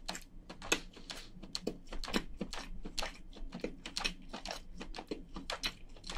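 A person chewing crayfish meat with the mouth closed: an irregular, quick run of wet mouth clicks and smacks.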